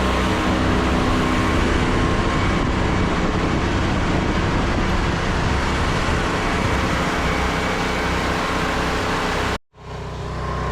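Pressure washer's gas engine running steadily under the hiss of the water spray. The sound cuts out abruptly for a split second near the end, then resumes.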